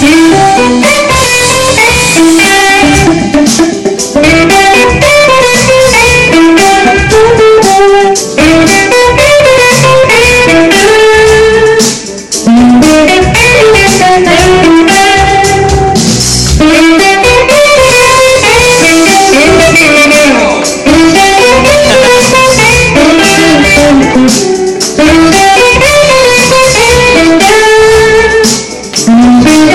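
Two electric guitars played through amplifiers, running fast melodic lead lines, with a short break about twelve seconds in and another near the end.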